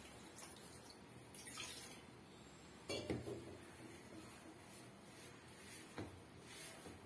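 Hands mixing and kneading chapathi flour with hot water in a plastic bowl: faint rustling and squishing. A short clatter about three seconds in and a lighter knock near six seconds stand out.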